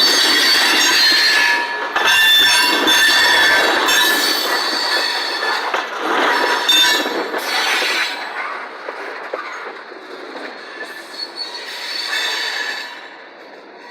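Steel train wheels squealing against the rails as the cars roll past, several high shrill tones over the rumble of the wheels, loud for the first eight seconds or so and then fading as the train moves off.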